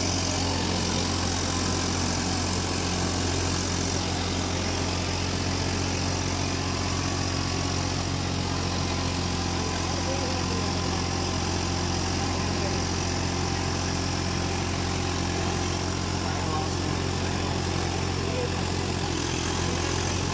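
Eicher tractor's diesel engine running steadily, a low, even drone that holds at one speed without revving.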